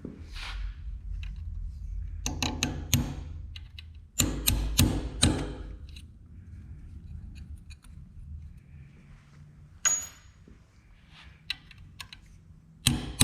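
Hammer striking a punch to drive a small pin out of a metal part held in a vise: sharp metallic blows in two clusters, around two seconds in and around four to five seconds in, then single strikes near ten seconds and near the end.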